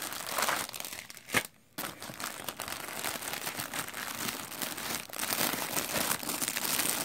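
Clear plastic packaging crinkling and rustling as items are handled and shifted inside a box. There is a sharp snap about a second and a half in, followed by a short pause.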